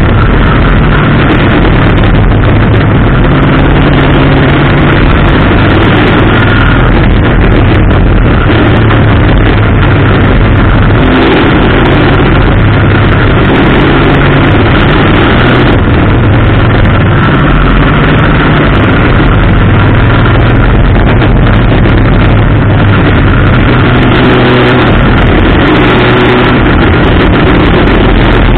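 Race car's engine running hard on a short oval, loud, its pitch rising and falling as it accelerates out of the turns and eases off into them.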